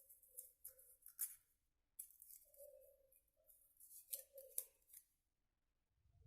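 Scissors cutting, in short bursts of crisp snips, falling quiet about five seconds in.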